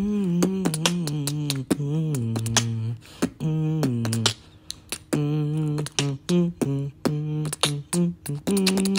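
Beatboxing: a hummed bass line held in steady low notes that step and bend in pitch, with sharp clicks and snaps laid over it as the beat. The sound drops away briefly about three seconds in and again just before five seconds.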